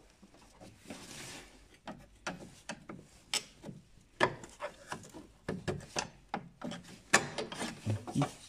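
Metal tools scraping and knocking against a steel engine-bay bracket as it is pried loose: a string of irregular clicks, clinks and scrapes, busier in the last three seconds.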